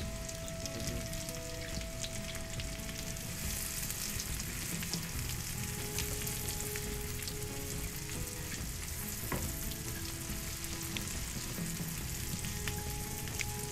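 Diced onion frying in melted butter in a nonstick pan, sizzling steadily, with clicks and scrapes of a wooden spatula stirring it. The sizzle grows louder about three seconds in.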